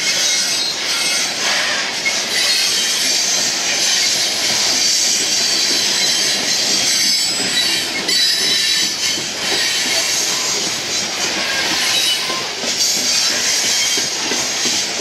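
Loaded coal train's cars rolling past: steel wheels grinding and squealing on the rails, a steady high-pitched noise with some clacking over the rail joints.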